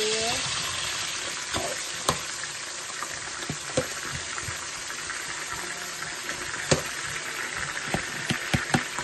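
Chopped onions sizzling as they fry in hot oil, the sizzle slowly fading after they go in. A metal spoon stirs them, clicking and knocking against the metal pot several times, most often near the end.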